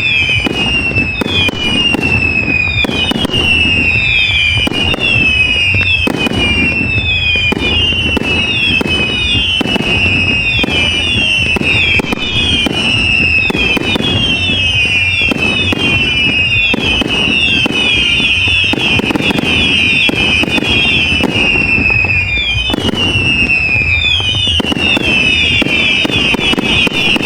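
Fireworks display: a dense, continuous barrage of bangs and crackle, with many overlapping whistles that each fall in pitch, one starting about every second.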